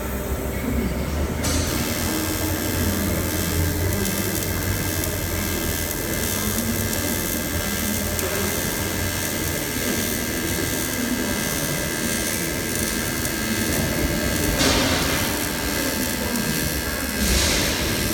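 AC TIG welding arc on aluminium, a steady harsh buzz that strikes up about a second and a half in, with brief louder surges near the end.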